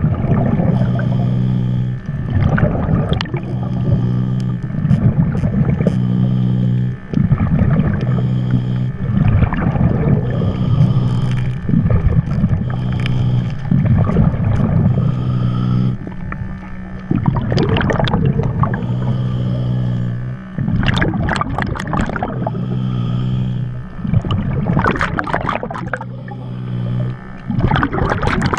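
Underwater sound picked up through a camera housing: a steady low droning hum, most likely a boat motor carried through the water, that cuts out briefly several times, broken by repeated short bursts of bubbling and scraping.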